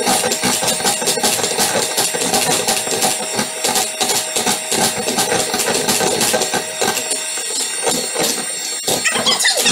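Electric hand mixer running steadily with a constant motor whine, its beaters rattling and knocking against the bowl as it whisks eggs and caster sugar.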